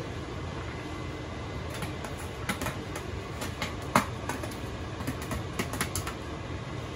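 Chopped celery tipped from a plastic container into a steel stockpot of cabbage: a scattered run of light clicks and taps, the sharpest about four seconds in, over a steady low hum.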